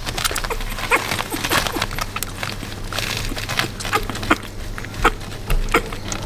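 Newborn runt puppy suckling milk from a feeding syringe: small, irregular wet clicks and smacks.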